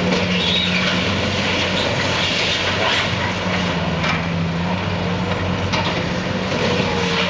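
Diesel engines of Bobcat skid-steer loaders running steadily, with a couple of faint knocks.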